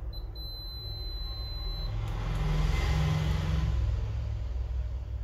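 Digital multimeter in continuity mode beeping as its probes touch the phone's SIM tray contacts: a short blip, then a steady high beep about a second and a half long, which signals an unbroken connection. A low rumble runs underneath and swells to the loudest point in the middle.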